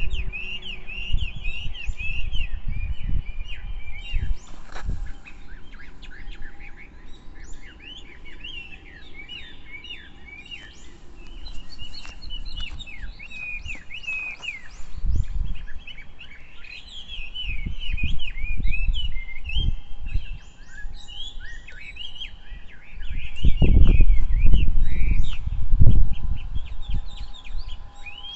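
Small songbirds chirping and trilling in quick, overlapping calls. Low rumbling noise comes and goes, loudest about three-quarters of the way in.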